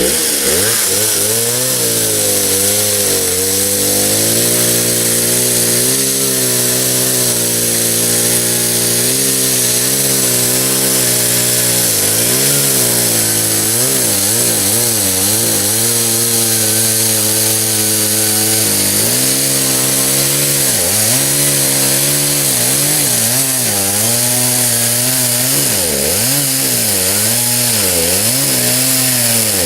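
Stihl two-stroke chainsaw running at full throttle while cutting into the trunk of a dead white oak. Its pitch holds fairly steady at first, then drops and recovers about once a second in the second half as the bar is pushed into the cut.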